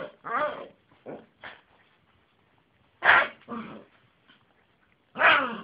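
Yorkshire terrier barking in short, high calls that slide down in pitch, coming in small clusters a couple of seconds apart.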